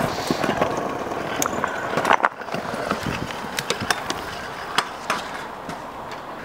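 Stunt scooter wheels rolling over brick block paving, with a rattling rumble and scattered sharp clacks. A louder knock comes about two seconds in.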